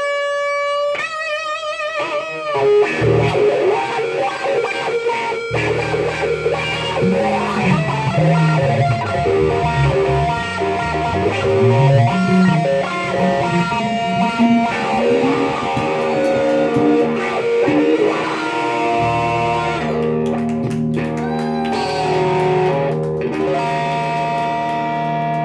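Live funky blues-rock on electric guitar and electric bass. It opens on a held sung note with vibrato, then an electric guitar solo runs over a bass line that comes in about five seconds in.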